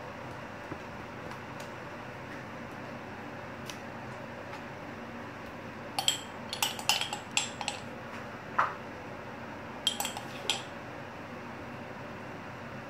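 Metal spoon clinking and scraping against a small glass jar while scooping out pesto: a quick run of sharp clinks about halfway through, a single clink soon after, and another short cluster about two seconds later.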